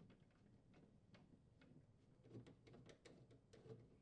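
Faint, irregular clicks of a hand screwdriver turning screws into a plastic ice bucket glide on a refrigerator's freezer liner, with more clicks in the second half.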